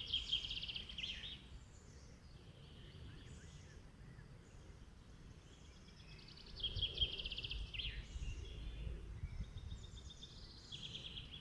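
Songbird singing: a fast run of repeated notes ending in a downward slur, heard at the start and again about six and a half seconds in, with fainter chirps between. A low rumble runs underneath and grows louder about halfway through.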